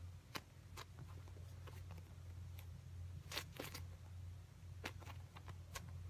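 Steady low hum with scattered faint clicks and light rustles, the sound of small objects being handled.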